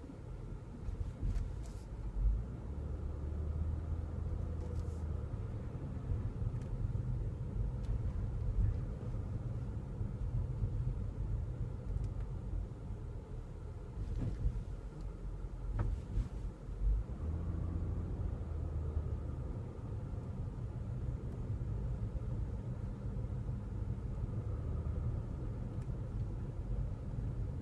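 2015 Nissan Murano driving slowly, with a steady low road and engine rumble and a few sharp knocks several seconds apart. The knocks fit the intermittent popping or tapping from the rear that comes over bumps at low speed; its cause is not yet found.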